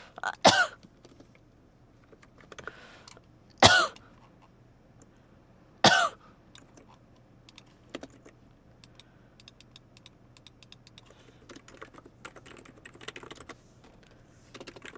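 A person with a cold coughs three times in the first six seconds, each cough short and loud. Then, through the second half, a computer keyboard is typed on in a scatter of quick key clicks.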